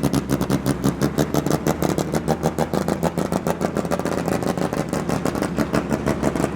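Racing car engine running steadily at low revs, with a lumpy, even pulsing of about seven beats a second.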